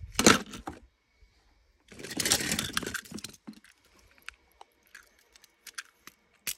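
Small toy trains clattering against each other as a hand rummages through a plastic tub of them: a short rattle at the start, a longer clatter about two seconds in, then scattered light clicks.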